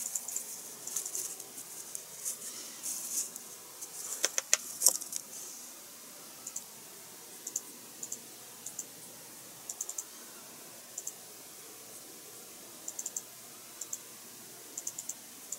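Small clicks and clatter of paint jars, a brush and plastic model parts being handled on a desk for the first five seconds or so, then faint light ticks in little clusters as a fine paintbrush works on a plastic engine part.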